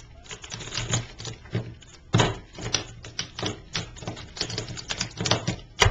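Plastic tiles of a Rubik's Master Magic puzzle clicking and clacking as it is quickly folded and flipped through a solve: a rapid, irregular run of taps, with sharper clacks about two seconds in and near the end.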